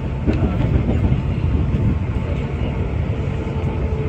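Shizuoka Railway 1000 series electric train running, heard from inside the car: a steady rumble of wheels on rail with a few short clicks. A faint thin whine comes in near the end.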